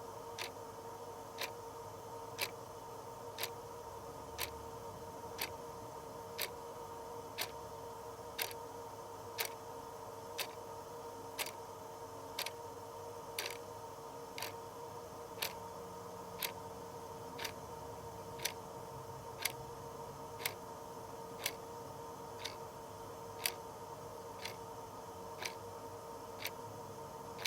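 Modern clock ticking steadily, about two ticks a second, alternating a louder tick with a fainter tock. A faint steady hum runs underneath.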